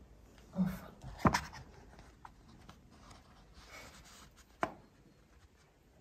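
Small handling noises in a quiet room: a sharp click about a second in, a soft papery rustle a little past the middle, and a smaller click near the end.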